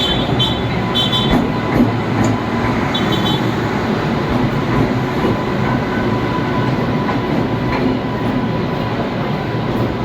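Train running along the track: a steady rumble, with a few short high-pitched chirps in the first three seconds.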